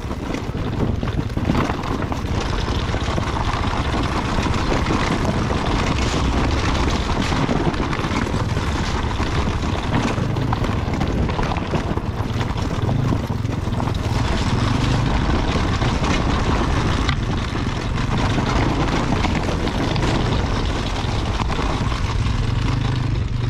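Dirt bike engine running steadily at low revs while the bike rolls over a rocky trail, with the chassis rattling over stones, heard from a rider-mounted camera.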